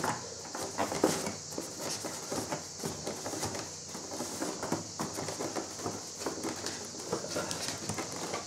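Hands working a small twisted plastic fastening loose from a polystyrene foam packing insert: irregular small clicks, scrapes and rustles.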